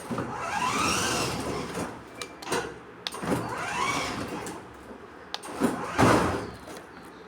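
Kids' electric ride-on toy car making a whining sound that rises and then falls in pitch, three times in a row.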